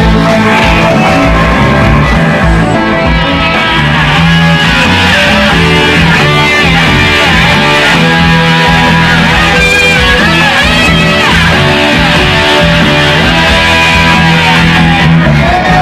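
Live rock band with an SG-style electric guitar playing lead, with string bends that glide in pitch about six and ten seconds in, over the band's steady backing.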